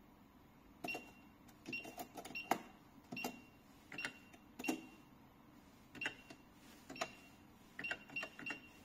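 Keys on a 686A 48-key cash register keyboard being pressed one after another, about a dozen times at uneven intervals, each press a click followed by a short high beep from the register.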